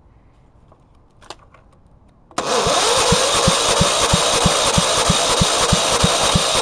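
Electric starter cranking a 13.5 hp overhead-valve lawn-mower engine with a compression gauge in the plug hole. It starts about two and a half seconds in and turns over steadily with an even beat of about three compression strokes a second. The engine does not fire. The gauge reads low compression, which the owner puts down to a head gasket or worn rings.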